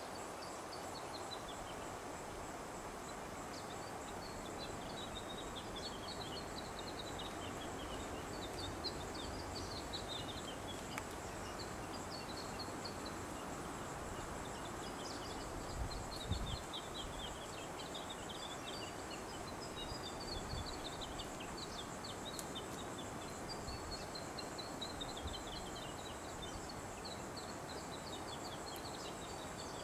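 A bird repeating short phrases of falling high notes, one every second or two, over a steady outdoor hiss with a faint steady high whine.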